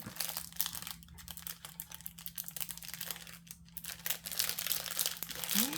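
Plastic packaging crinkling and crackling in irregular bursts as it is handled and opened.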